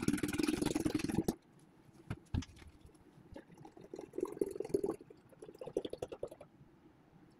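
Milk poured from a plastic bottle into a large glass jar of milk: a steady pouring stream that cuts off about a second in, then softer uneven glugs and splashes as the bottle runs low, dying away near the end.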